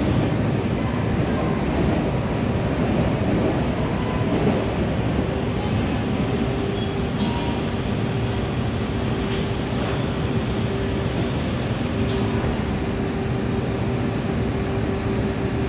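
KNS C751B MRT train standing at the platform with its doors open, giving a steady hum with one constant tone over a low drone. A few short clicks come about nine and twelve seconds in.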